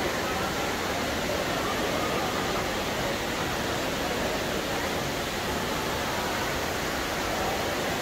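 Steady rushing of a tall indoor waterfall pouring into a pool, with a faint murmur of crowd voices.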